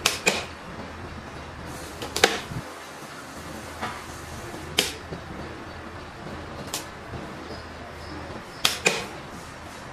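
Sharp mechanical clicks from a miniature circuit breaker switched by hand and a small automatic transfer switch changing over between primary and backup supply. There is a close pair of clicks at the start, single clicks at about 2, 4, 5 and 7 seconds, and another close pair near the end, over a low steady hum.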